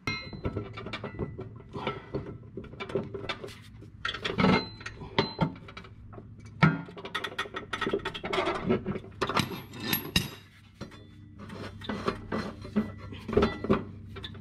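Ratchet wrench with a 1-inch socket unscrewing a riding mower's blade bolt: quick runs of ratchet clicks and metal clinks.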